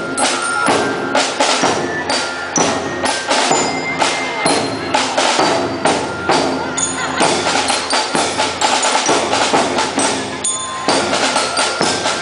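Marching band playing: a dense, steady drum pattern under brass chords, with short high bell-like notes on top.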